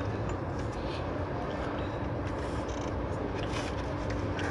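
BMW 740Li's twin-turbo straight-six engine idling steadily with an even, low hum, running after an injector swap so that a misfire on one cylinder can be watched for.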